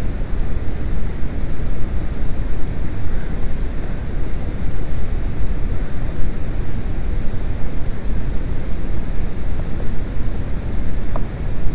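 Steady low rumbling rush like wind buffeting the microphone, its loudness wavering throughout, with a couple of faint clicks near the end.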